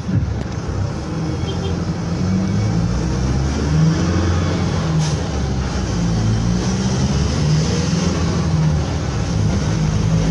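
A car running through floodwater in heavy rain: a steady low engine rumble under a rushing hiss of water and rain.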